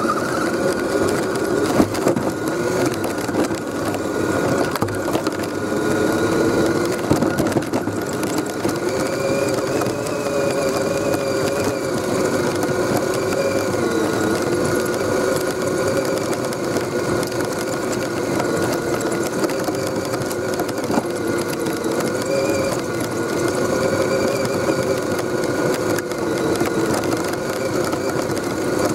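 Axial SCX10 RC crawler's electric motor and gear train whining, the pitch wavering gently up and down as the throttle changes, over a steady rough noise of the truck moving over the ground.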